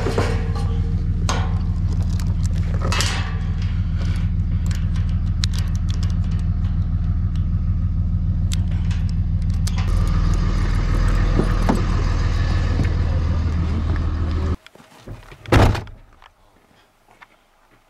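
A vehicle engine idling steadily while a steel chain and padlock on a metal gate rattle and clank as they are handled. Near the end the engine sound cuts off suddenly and a single loud thump follows.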